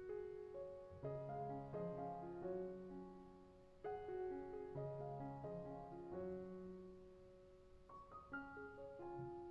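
Soft background piano music, gentle chords and melody notes.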